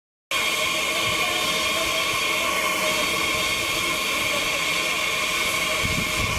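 Small tank steam locomotive standing at the platform, steam hissing steadily from around its cylinders, with a few steady tones running through the hiss. The sound starts abruptly a fraction of a second in, after a brief silence.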